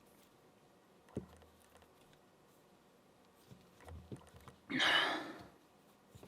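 A few small clicks and ticks of lock parts and pliers being handled, then a loud breath blown out through the mouth lasting about a second, a little before the end.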